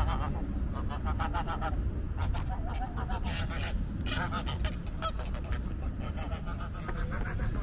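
A flock of geese honking, many short overlapping calls in quick succession over a steady low outdoor rumble.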